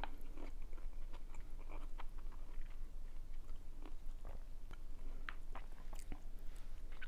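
A person chewing a steamed, marinated artichoke close to a clip-on microphone: a steady run of small wet mouth clicks and soft chewing noises, which she calls kind of squeaky.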